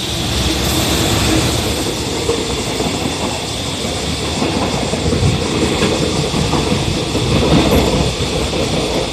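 Freight train hauled by an EF210 electric locomotive passing close by, its wheels clattering steadily over the rails.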